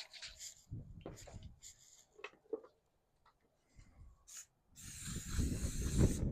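Light handling and rubbing sounds, then from about five seconds in a rising hiss as a spray can sprays avocado oil onto the preheated George Foreman grill plates.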